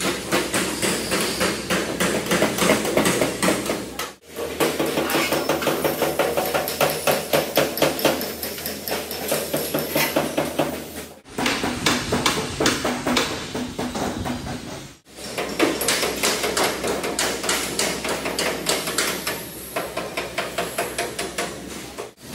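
Rapid hammer strikes on metal, several a second, in a few short takes joined by abrupt cuts.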